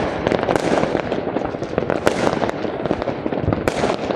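Fireworks exploding in a dense, continuous crackle, with sharp bangs every half second or so.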